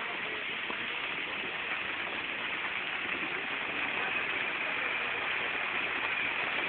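Steady rain falling, a continuous even hiss with no separate hits standing out.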